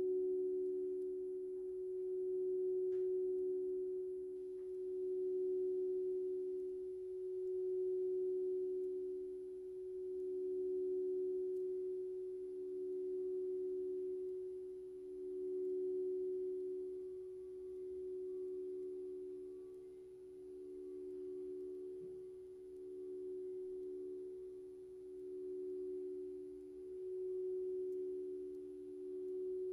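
Steady synthesized pure tones, a few held pitches sounding together, swelling and fading smoothly about every two and a half seconds: a sound-healing frequency track.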